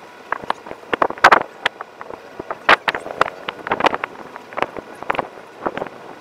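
Wind buffeting the microphone in irregular gusts, with many sharp, uneven bumps.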